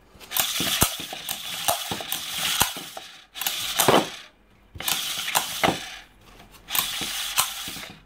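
Recoil starter of an Iseki KF340 engine pulled and let rewind about four times, the pulley spinning with a rapid clicking rattle of its pawls in the metal housing. The freshly re-roped starter is working properly, its pawls coming out as they should.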